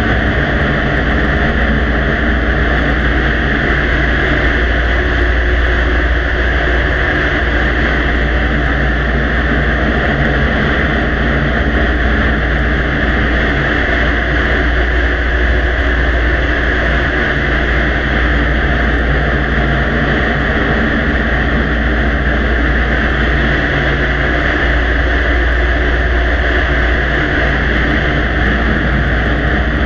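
Steady loud hiss with a low hum underneath, unchanging throughout: the noise floor of a very quiet recording boosted far up, with no distinct clicks or voices standing out.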